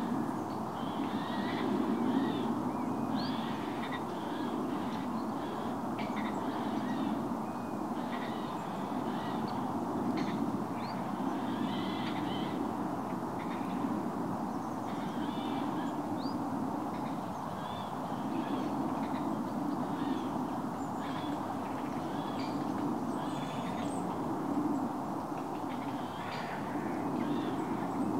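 Shallow stream water running with a steady rushing noise, while birds give short calls over it again and again throughout.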